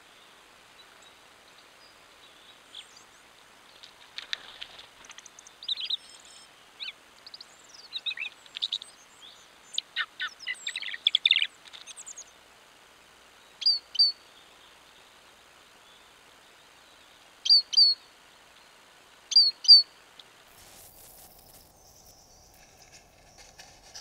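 Small woodland songbirds calling: a run of quick high chirps and twitters, then three loud two-note calls a few seconds apart.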